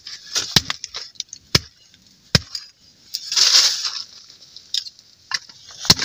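A hatchet chopping and splitting small pieces of firewood into kindling: a handful of sharp, separate chops spread through, with a short rasping noise around the middle.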